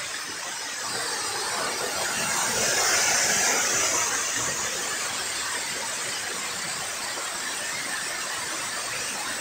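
Water cascading down a sloped stone spillway wall into a foaming pool: a steady rushing hiss, loudest about three seconds in.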